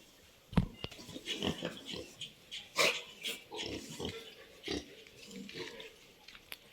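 Pigs grunting in a dense string of short calls, with a sharp thump about half a second in.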